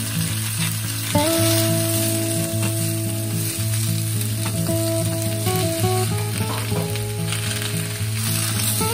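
Daikon chunks and komatsuna sizzling in hot oil in a frying pan, turned now and then with a wooden spatula that scrapes the pan. Soft background music with long held notes plays underneath.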